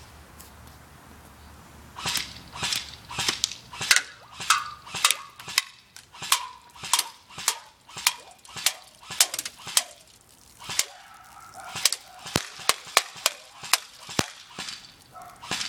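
Ignite M4 Viper electric airsoft rifle firing single shots on semi-automatic, sharp clicks about two a second, starting about two seconds in, with a short pause about two-thirds of the way through.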